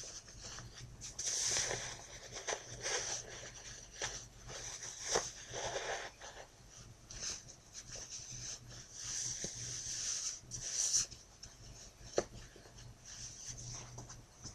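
Fabric rustling and rubbing as a ring sling is pulled and adjusted around a baby, in uneven surges with a few small clicks.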